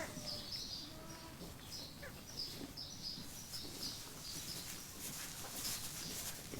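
A small bird chirping over and over, about two to three short high chirps a second, with a faint lamb bleat near the start.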